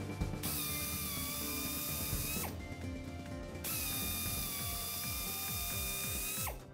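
Low-speed drill spinning a carbide cutter through a radial truck tire's tread, reaming out a puncture injury, with a steady whine. It runs in two spells with a break of about a second near the middle, and stops just before the end.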